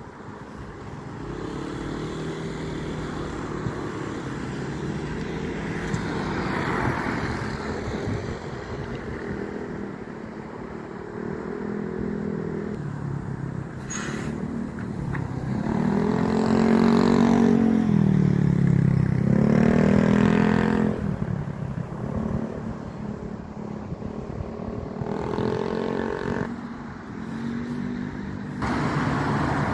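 Road traffic on a wet road: vehicle engines pulling away and passing, with tyres swishing on the wet surface. Loudest about two-thirds of the way through, where engines rise and fall in pitch as vehicles pass close.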